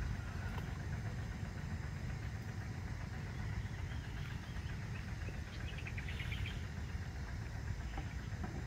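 Outdoor ambience: a steady low rumble, with a bird's short, rapid chirping call about six seconds in.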